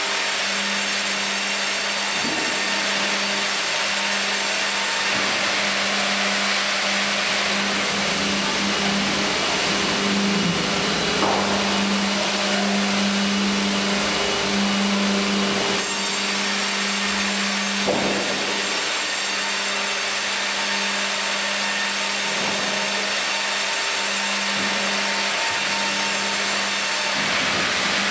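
Fimaksan Fi.120 tandem band saw running and ripping a log fed on a hydraulic carriage: a steady machine hum under dense sawing noise, with a couple of brief knocks partway through.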